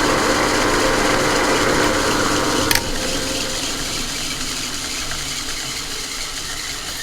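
1940s Qualos metal lathe running steadily, then switched off with a click nearly three seconds in and slowly spinning down.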